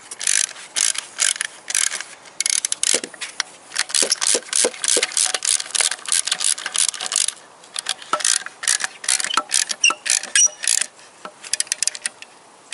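Socket ratchet wrench clicking in quick back-and-forth runs, with short pauses between them, as it tightens a bolt on an engine block heater's mounting bracket.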